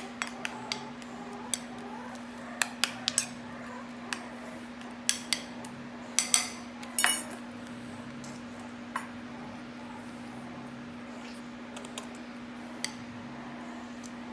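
A metal spoon and plastic syringe clinking and tapping against a small stainless steel bowl, with crinkles from a plastic zip bag, as puppy food is scooped and stirred. The clinks come in a quick cluster over the first several seconds, a couple of them ringing briefly, then thin out to a few single taps. A steady low hum runs underneath.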